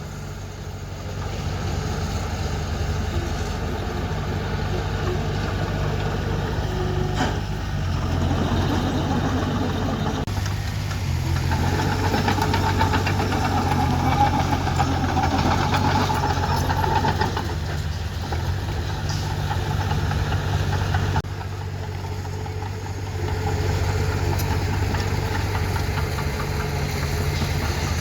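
Heavy earthmoving machine's diesel engine running steadily, its pitch stepping up and down several times as the load changes, with a couple of short knocks along the way.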